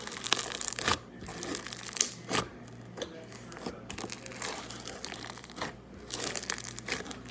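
Slime being worked by hand, giving irregular crackling and crinkling pops.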